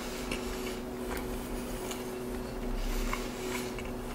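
A man chewing a small piece of tender braised beef rib with his mouth closed: faint, irregular wet mouth clicks and smacks over a steady low hum.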